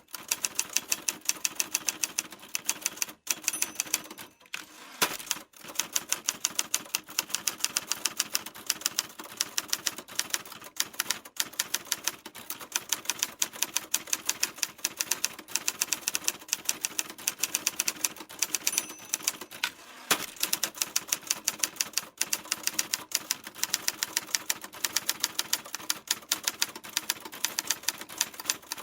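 Typewriter keys striking in quick, steady succession, several clacks a second, with a brief pause a few seconds in.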